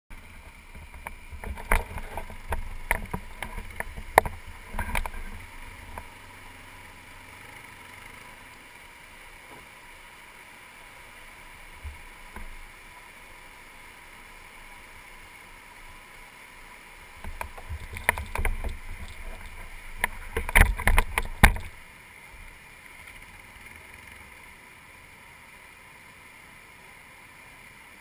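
Steady rush of river rapids, with two spells of sharp knocks and low rumbling, near the start and again about two-thirds of the way through.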